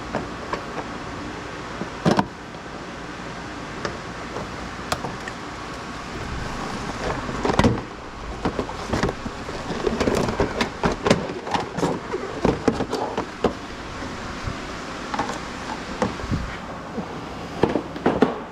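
Irregular clicks, knocks and rattles of hand tools and parts being handled during work on a car, thickest in the second half, over a steady background hum.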